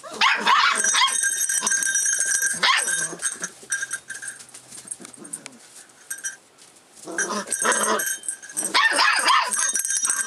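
A litter of six-week-old rough collie puppies playing together with yips and small barks. The sound is busiest in the first second and again from about seven seconds in, and quieter in between.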